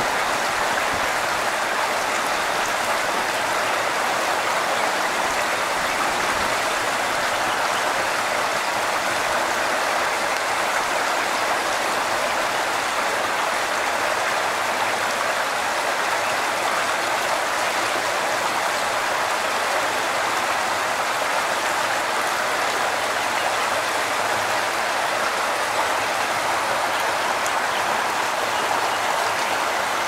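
Small stream waterfall pouring steadily into a pool, a constant even rush of splashing water.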